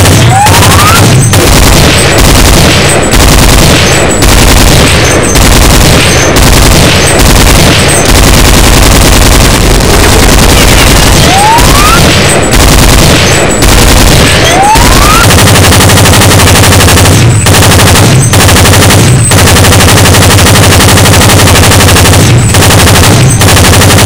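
Automatic gunfire sound effect: continuous rapid machine-gun fire with brief gaps. Three short rising whistles cut through it, one near the start and two around the middle.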